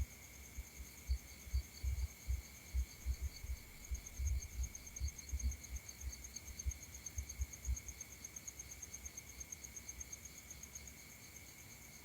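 Insects chirping in a steady, fast-pulsing trill at several high pitches. Irregular soft low thumps sound over it, thickest in the first eight seconds and sparser after.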